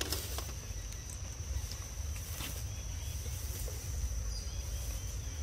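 Outdoor forest ambience: a steady high-pitched insect drone over a low rumble, with a few faint clicks and small chirps.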